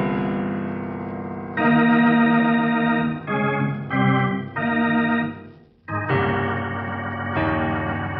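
Organ music: a dramatic cue of sustained chords that change every second or so, with a brief break about six seconds in, closing the scene before the mid-program break.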